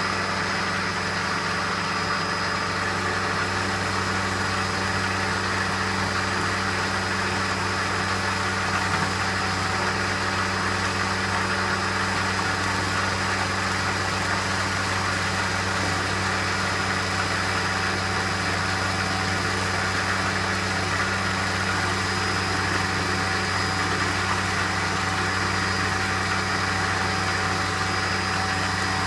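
Milling machine running a 1/2-inch four-flute carbide end mill through a roughing cut, a steady motor hum with a continuous cutting hiss and a thin high whine.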